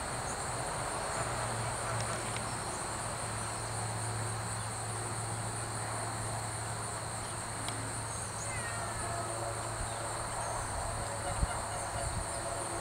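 Insects such as crickets chirring in a steady, high-pitched drone that never lets up, over a steady low hum. A few faint chirps come in about eight to nine seconds in.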